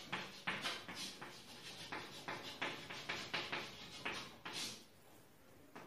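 Chalk writing on a blackboard: quick tapping and scratching strokes, several a second, that stop about a second before the end.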